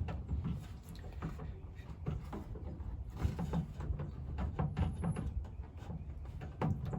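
Scattered small clicks, knocks and scrapes of a truck-bed light's plastic housing being worked and pried loose by hand, over a low rumble.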